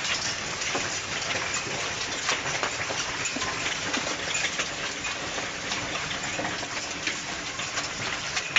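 Volcanic lapilli and ash falling from Etna's eruption cloud: a dense, steady pattering of countless small stones hitting the ground and surfaces, like heavy rain, with one louder knock near the end.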